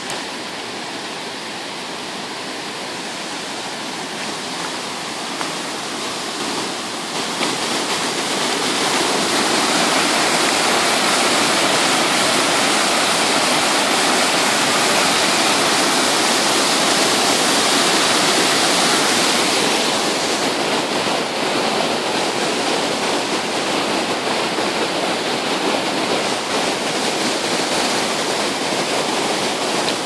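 Swollen river rushing over rocky rapids, a steady sound of white water running high after rain. It grows louder about a quarter of the way in and eases a little about two-thirds through.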